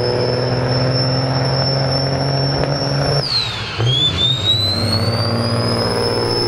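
Loaded semi truck's turbocharged diesel engine under hard acceleration, with a high turbo whine over the engine note. A little after three seconds the engine and whine drop sharply at a gear change, then the whine climbs again as the truck pulls in the next gear.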